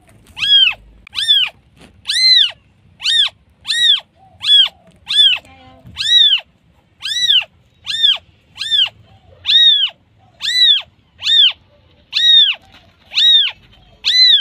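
Newborn kitten mewing over and over, short high calls that rise and fall in pitch, a little more than one a second: a kitten calling for its mother.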